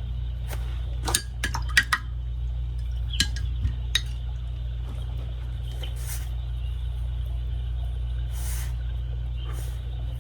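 Light clinks and taps of watercolour painting gear while paints are swatched from a small travel palette, bunched in the first few seconds, followed by a few soft swishes. A steady low hum runs underneath.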